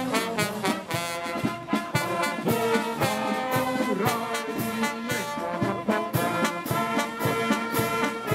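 Upbeat brass music, trumpets and trombones playing over a steady beat.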